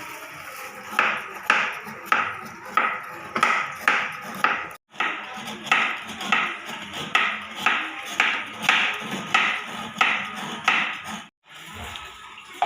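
Rhythmic hand-worked kitchen strokes, about two a second, as turmeric, temulawak and kencur roots are prepared for jamu. The sound cuts out briefly twice.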